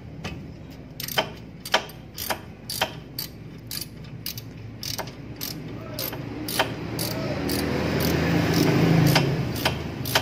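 Ratchet wrench clicking, about two clicks a second, as the lower caliper bolt on a front disc brake is undone. In the second half a rumbling noise swells, loudest near the end, then fades.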